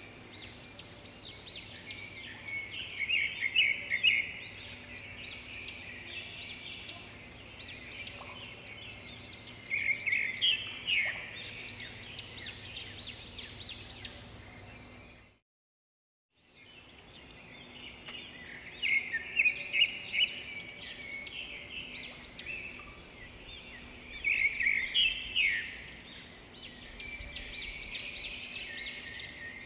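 Small birds chirping and twittering in quick, bright, sweeping notes over a low steady hum. It all cuts out for about a second midway, then the chirping resumes.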